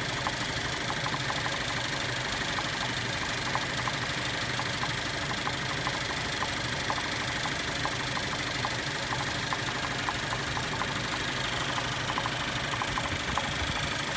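2013 Cadillac ATS 2.0L turbocharged four-cylinder idling, with a sharp knock ticking about twice a second over the steady engine hum. The engine shakes and has stalled at idle without throwing codes, and the owner links the knock to a failing piston.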